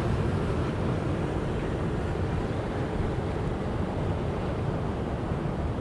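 Steady wind rumble on the microphone mixed with surf washing against breakwall rocks, an even noise heaviest at the low end.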